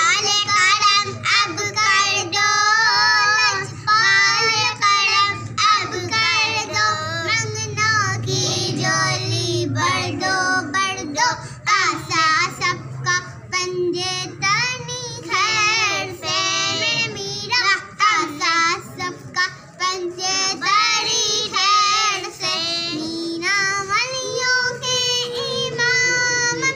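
Two young girls singing together, their pitch wavering and gliding through the melody.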